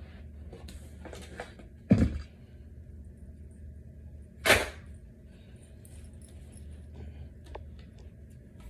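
Handling of flat-pack dresser parts: a heavy thump about two seconds in and a sharp clatter about halfway, with small clicks and knocks between.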